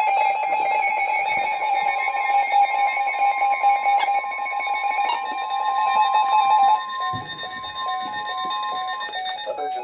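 Several weather radios sounding their alert tones at once, a new warning coming in: electronic beeping that steps in pitch and changes pattern about seven seconds in, with the steady 1050 Hz NOAA Weather Radio warning tone held for several seconds over it.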